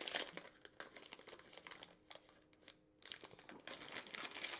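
Foil trading-card pack wrapper crinkling and crackling as it is opened by hand, with a brief lull near the middle.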